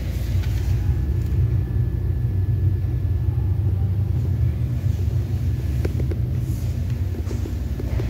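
Steady low rumble, with a faint thin whine in the middle for a few seconds.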